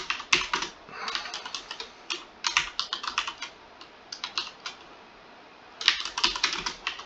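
Typing on a computer keyboard: quick runs of key clicks, with a pause of about a second a little past the middle.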